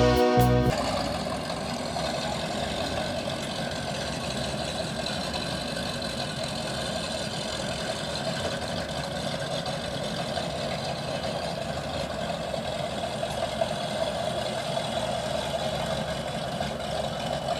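Motorboat engine running steadily at idle speed. A guitar music track cuts off about a second in.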